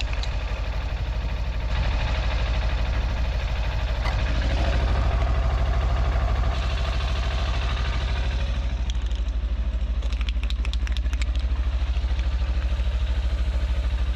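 Kawasaki Versys 300's parallel-twin engine idling steadily.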